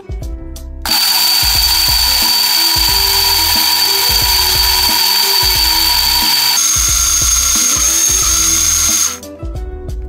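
Small electric blender motor running at full speed, grinding seeds in liquid. It starts about a second in, its high whine steps up in pitch about two-thirds of the way through, and it stops near the end.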